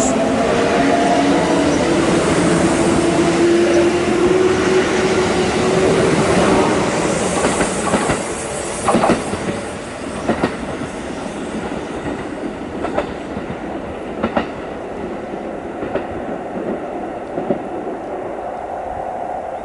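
Kintetsu electric train running on the rails: a motor whine that rises slowly in pitch over the first several seconds, then fades as the rumble drops. The wheels then clack over rail joints, a sharp clack every second or two.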